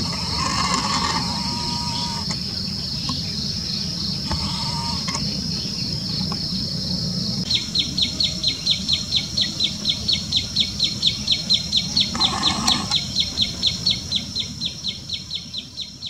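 Common tailorbird calling a fast, even string of sharp repeated notes, about five a second, starting about halfway through. Under it runs a steady high insect trill, and a few shorter calls from other birds come earlier.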